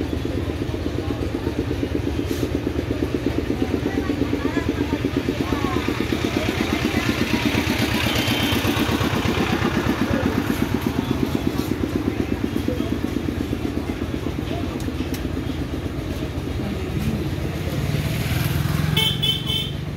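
A single-cylinder motorcycle engine idling with a steady, even beat of about five or six pulses a second. A quick run of short high beeps comes near the end.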